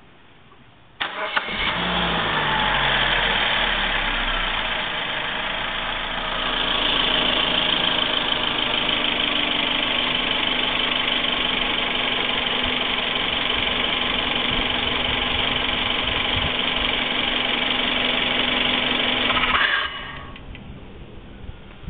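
2010 Suzuki Swift engine started about a second in, its pitch falling briefly as it settles to a steady idle. Near the end the engine is switched off and a fainter sound carries on: the weird noise that comes when the ignition is off.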